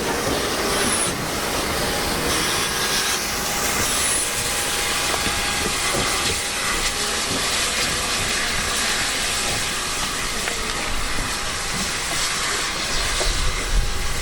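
A train running past at close range: a steady, even hiss and rush of noise.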